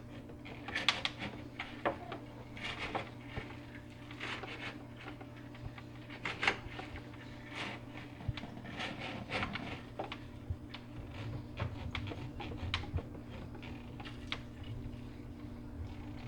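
AQQA electric aquarium gravel vacuum's pump humming steadily while gravel clicks and rattles irregularly as it is sucked through the tube.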